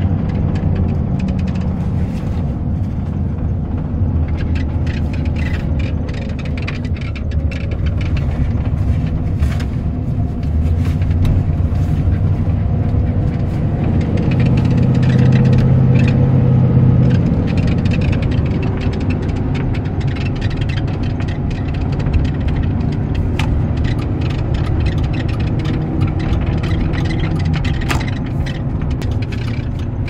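Chevy Express 3500 van driving, heard from inside the cab: a steady low engine and road rumble that swells louder for a few seconds in the middle.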